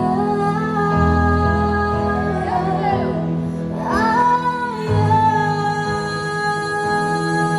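Gospel worship music from a concert: a female voice sings over held chords and a steady bass accompaniment.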